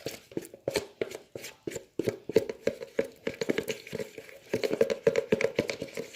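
Hands kneading and squeezing sticky, not-yet-ready slime: a fast, irregular run of wet clicks, snaps and squelches.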